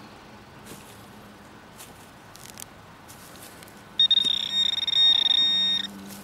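Metal detector's high electronic alert tone sounding for about two seconds, starting about four seconds in, stuttering and then steady, signalling metal close by in the soil. Light scrapes and ticks of digging come before it.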